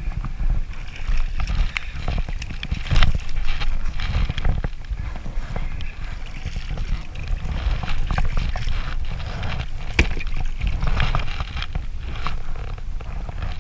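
Wind rumbling on the microphone over water lapping at a kayak, with scattered sharp knocks and splashes as a hooked striped bass is brought alongside and lifted aboard.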